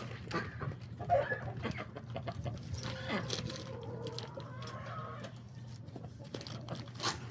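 Chickens clucking in short calls, with a steady low hum underneath.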